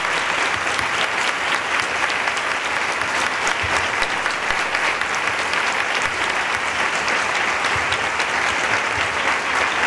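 A large audience applauding in a hall: sustained, dense clapping that holds steady throughout.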